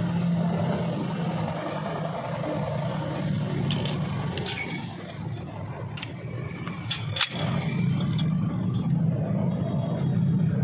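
Steady low hum of motor-vehicle engines, with a few light metallic clicks from brake-shoe springs and parts being handled, the sharpest about seven seconds in.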